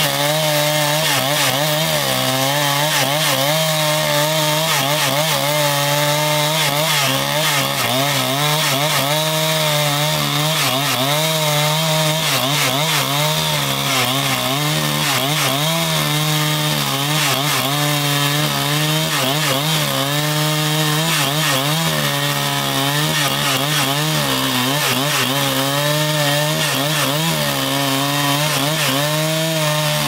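Petrol chainsaw running under load, cutting lengthwise along a log; the engine note keeps wavering up and down as the chain bites into the wood and recovers.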